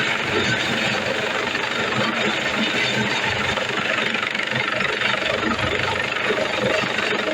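Search-and-rescue helicopter's engines and rotor running steadily.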